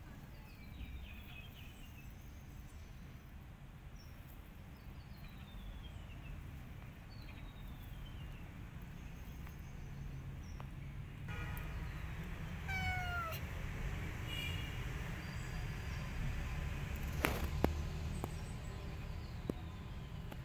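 A cat meowing. A clear meow falling in pitch comes just past the middle, after fainter high falling calls earlier, over a steady low background rumble. Two sharp clicks come near the end.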